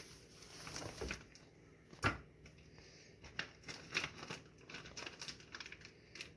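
Plastic packaging of a beef tenderloin being cut open and handled: irregular crinkling and tearing with scattered clicks, and one sharp snap about two seconds in.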